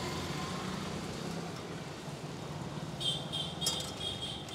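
Street traffic noise with a low, throbbing engine hum. About three seconds in, a steady high-pitched tone joins, with a couple of sharp clicks.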